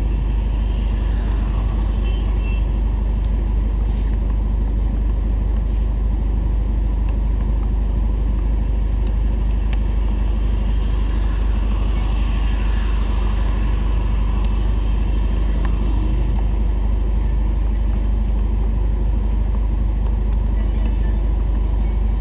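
Steady noise of heavy rain on a street, with a car passing on the wet road about halfway through, its tyres hissing as the sound swells and fades.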